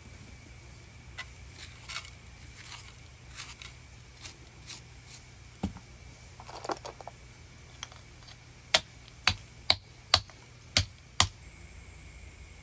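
A hammerstone knocking on lumps of iron ore on a flat stone anvil, crushing them: light taps and scrapes at first, then six sharp strikes about half a second apart in the second half.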